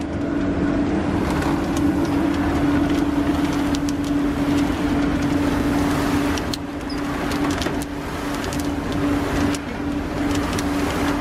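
Belt-driven roasting machine running with a steady hum, while roasted peas and chickpeas rattle and tumble against the wire mesh of its turning drum in a constant stream of small clicks.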